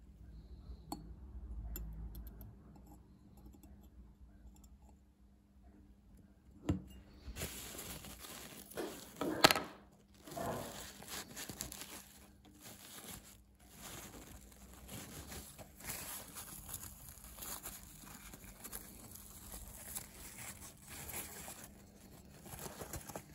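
Crumpled paper shop towel crinkling and rustling as a small clock wheel is rubbed dry in it between the fingers, loudest about ten seconds in and going on to the end. A single sharp knock comes just before the rustling starts.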